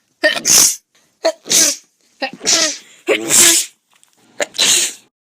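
A woman sneezing five times, one quick sneeze after another. Each sneeze is a short sharp catch followed by a loud, hissy burst, with dead silence between them where separate recordings are cut together.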